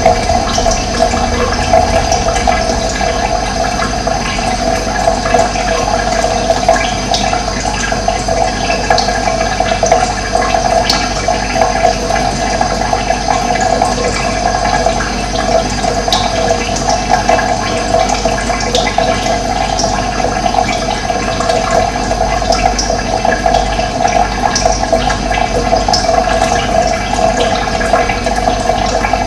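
Running water flowing steadily, an even rushing sound with no pauses.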